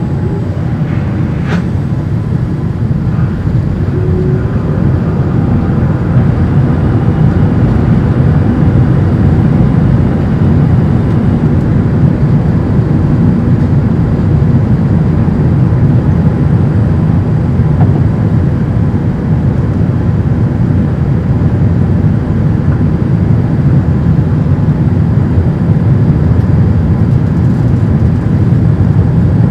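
Steady low cabin noise of a Boeing 787-8 airliner in flight, from airflow over the fuselage and its General Electric engines, heard from a seat inside the cabin. It swells a little over the first several seconds, then holds even.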